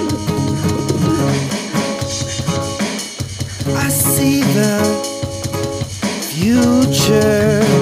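A band's song playing: a drum kit with snare rimshots and bass drum under held and bending pitched notes from the other instruments.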